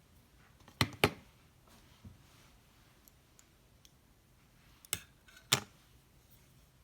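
Flat iron's plates clicking shut and open on a section of hair: two pairs of sharp clicks, the second pair about four seconds after the first.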